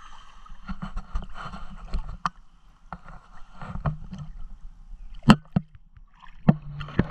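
Swimming-pool water sloshing and lapping around a camera held at the water's surface, with irregular knocks of water and handling against the camera; the sharpest knock comes about five seconds in.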